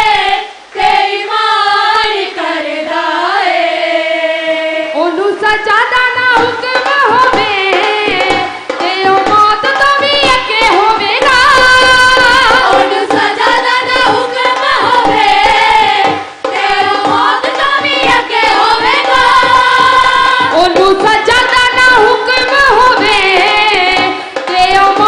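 Women's voices singing a Punjabi worship hymn through microphones. A drum beat comes in underneath about five seconds in.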